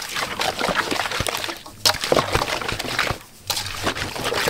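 Slotted spoon stirring raw seasoned meat in a large steel pot: wet squelching and metal scraping, broken by two brief pauses.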